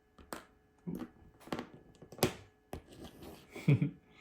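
Small plastic collectible figures and their packaging being handled: a string of about six light clicks and rustles over four seconds.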